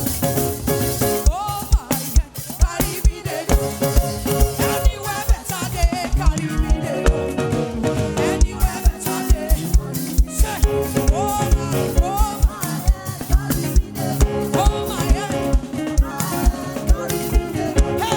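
Live African gospel praise band playing an upbeat groove with a steady kick-drum beat, keyboard and singing.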